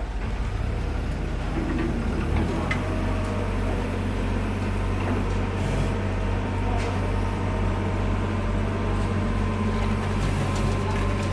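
Heavy engine running steadily with a low, even hum, and a few faint knocks over it.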